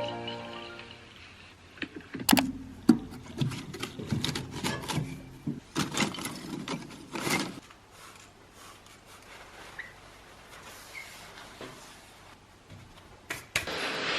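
A run of irregular knocks and clatters of objects being handled for about five seconds, then quiet room tone with two more clicks near the end.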